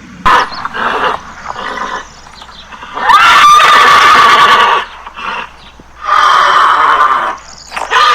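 Loud animal calls: a few short calls, then two long calls about three and six seconds in, the first opening with a rising glide before holding one pitch.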